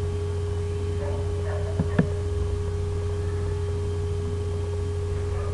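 Steady electrical hum with a constant tone over it. A computer mouse clicks twice in quick succession about two seconds in.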